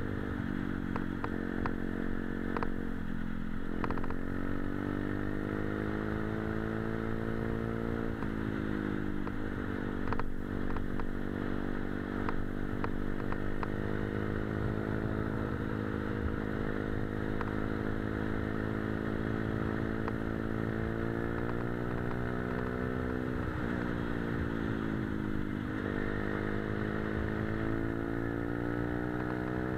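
Motorcycle engine running under way, heard from on the bike itself. The engine note climbs and drops sharply at several gear changes and cruises fairly steadily through the middle stretch.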